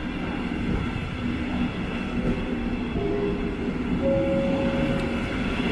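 A train running past on the track: a steady rumble of wheels on rail with several steady whining tones over it, and one higher tone standing out for about a second near the end.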